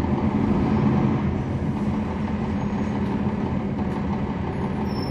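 Cummins ISL9 inline-six diesel engine of a 2011 NABI 416.15 transit bus running steadily, heard from inside the bus.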